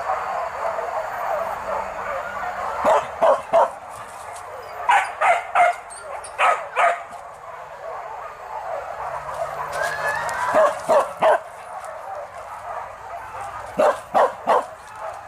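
Hunting dogs barking and yelping. Sharp barks come in five quick runs of two or three over a constant chorus of many dogs yelping.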